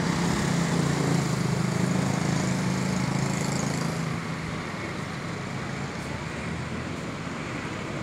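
Road traffic passing on a wet road: a vehicle's engine drones loudly for the first few seconds and fades about four seconds in, over a steady hiss of tyres on wet asphalt.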